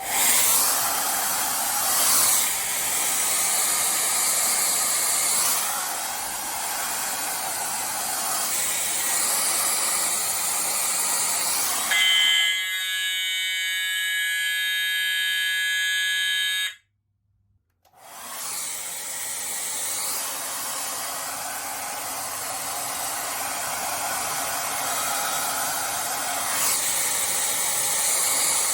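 Hair dryer blowing steadily, used to heat a fire alarm heat detector. For a few seconds about twelve seconds in, a steady pitched tone with several overtones replaces it. A brief silence follows, then the hair dryer runs again.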